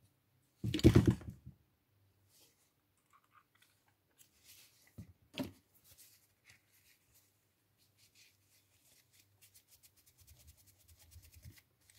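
Light scratching and small clicks of a bristle brush and fingers working over a key fob's circuit board, turning into a quick run of fine ticks near the end. A short louder noise comes about a second in, and another sharp one around halfway.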